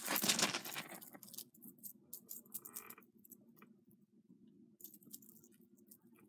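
Metal chains and small metal balls of a gold-tone multi-strand tassel necklace jingling and clinking as it is handled, in scattered light clicks, after a rustle that fades out in the first second.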